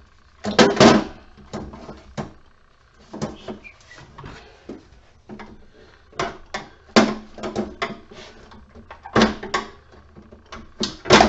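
Hand tools knocking and clicking against the metal housing and parts of an emergency lighting unit being taken apart: irregular sharp knocks and clatter, a few much louder than the rest.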